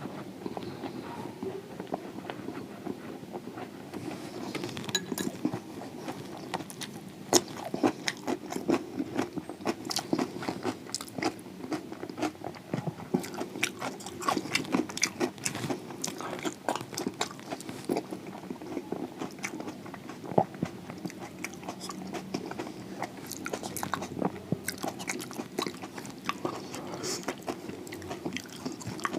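Close-up eating sounds: biting and chewing a crispy fried samosa, with many irregular sharp crunches, busiest through the middle.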